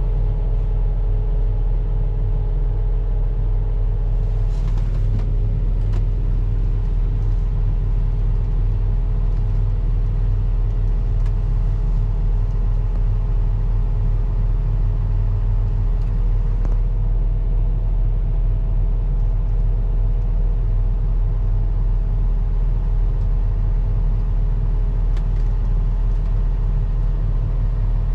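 Diesel engine of heavy earthmoving machinery running steadily under load: a constant low drone with a faint steady whine above it.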